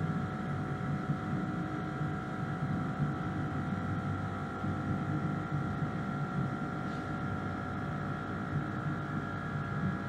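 Thermwood 5-axis CNC router moving its gantry and head on Siemens 1FT5 servo motors at about half speed. It makes a steady mechanical hum with several steady whining tones over it.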